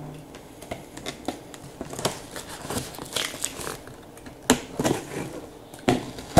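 Knife blade slicing along the taped seam of a cardboard box: irregular scraping and crinkling, with a few sharp snaps in the second half as the blade breaks through.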